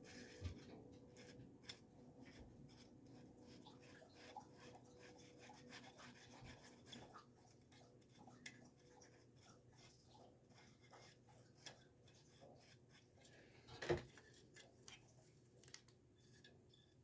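Felt-tip marker rubbed over a metal gauge face: faint, quick scratchy strokes and small clicks, with one sharper knock near the end.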